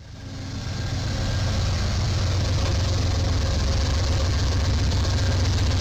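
Amtrak diesel locomotive and train crossing a rail bridge: a steady, heavy engine rumble that fades in over about the first second.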